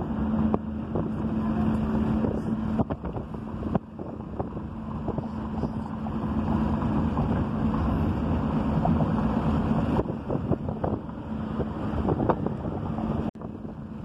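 Wind buffeting the phone's microphone and road rumble from a moving car, with a steady low hum that is strongest in the first few seconds.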